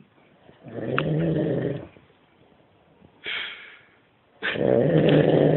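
A man snoring heavily: two long, loud rattling snores on the in-breath, about a second in and again near the end, with a short breathy out-breath between them.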